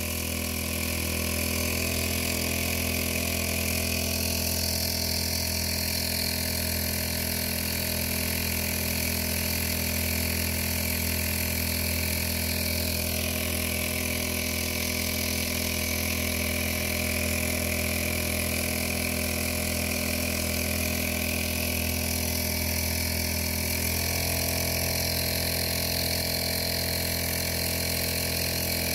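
Ozeam 1.3 HP outboard motor running steadily, pushing the kayak along under way, with a slight change in tone near the end.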